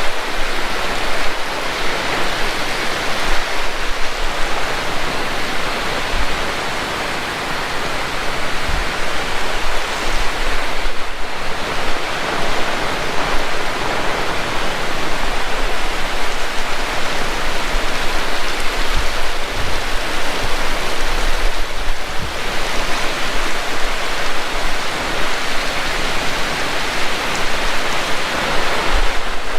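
Heavy rain pouring steadily, a dense loud hiss that eases briefly twice, with scattered low thumps underneath.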